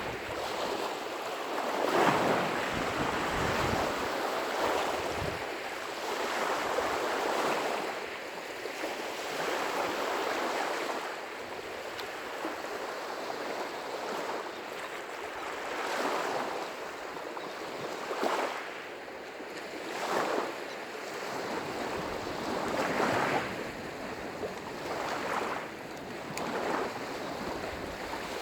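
Small waves breaking on a lake shore, the wash swelling and falling every two to three seconds, with wind buffeting the microphone now and then.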